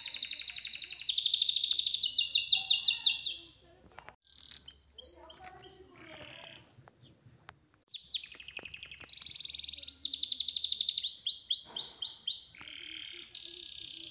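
A songbird singing in rapid trilled phrases, each held at one pitch and then switching abruptly to another, with a quieter pause in the middle before the song resumes.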